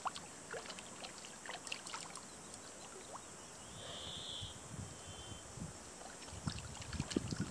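Faint water sloshing and small splashes with scattered light clicks, from a hooked fish being played in close to the angler.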